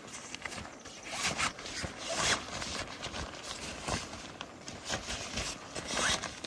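Tent gear being handled: nylon fabric rustling and scraping, with zipper pulls, in irregular strokes.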